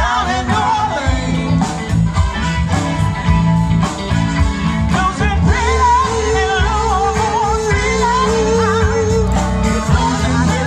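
Live band playing a soulful blues song, with a singer holding long, wavering notes over a steady bass and drum beat.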